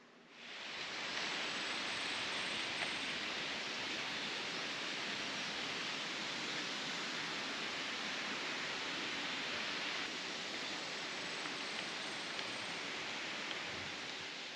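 Steady rushing of water, an even hiss that comes in about half a second in and holds unchanged.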